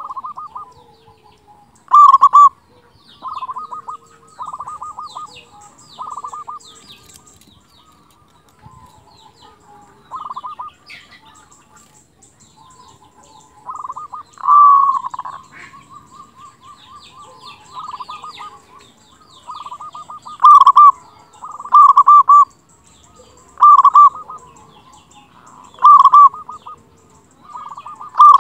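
Zebra dove (perkutut) cooing in repeated phrases of rapid, stuttering coos. The loud phrases come about every two seconds in the second half, with quieter phrases between. Faint chirps of small birds sit above it.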